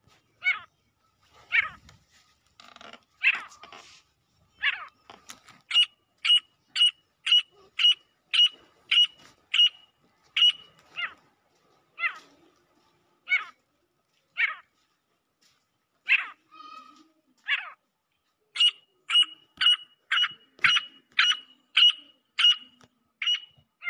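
Female grey francolin calling: short, sharp notes repeated, picking up twice into fast runs of about two notes a second, with slower, spaced notes between.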